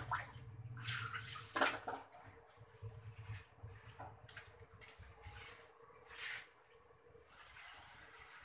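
Kitchen cooking sounds: scattered clicks and clinks of cookware and utensils, with a few short hissing, rushing bursts, over a faint low hum.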